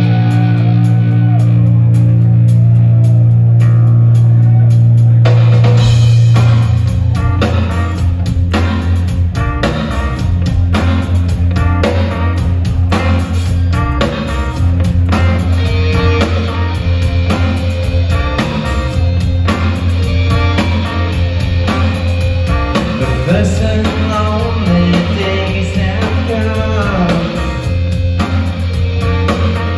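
Live rock band playing: a sustained chord over a droning low bass note, then about five seconds in the drum kit comes in with a steady beat and guitars, bass and keyboards play on together.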